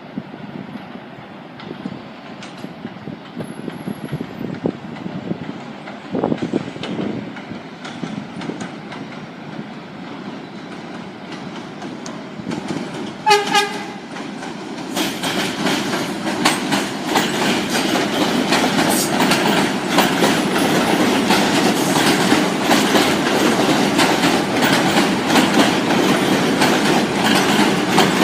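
New York City Subway train coming into the station: a rumble grows, then a short horn blast sounds about 13 seconds in. After that the train runs in loud, with rapid clicking of wheels over rail joints.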